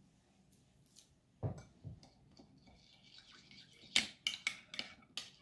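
A metal spoon stirring in a small bowl, scraping and clicking against its sides in a quick run of ticks over the last two seconds or so, after one soft thump about a second and a half in.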